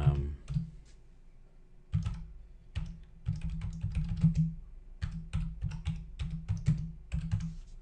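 Typing on a computer keyboard: quick, irregular runs of key clicks, starting about two seconds in and continuing almost to the end.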